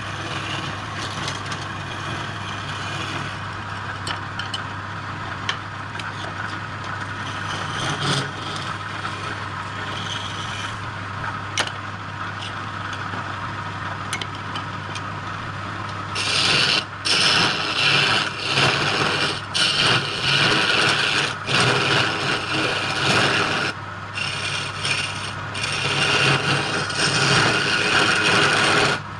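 Wood lathe running with a steady low hum while a tool rubs and scrapes against the spinning wood. About halfway in, the scraping gets much louder and comes in repeated passes with short breaks.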